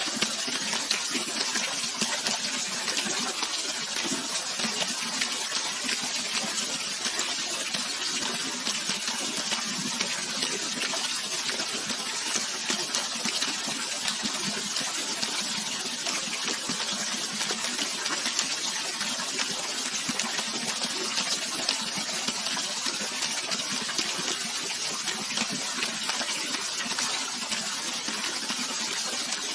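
Steady rush of running water, an even hiss with fine splashing texture and no pauses.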